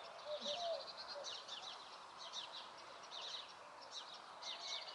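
Small songbirds singing outdoors: bursts of high, rapid chirps and twitters repeating every half second or so over faint background noise.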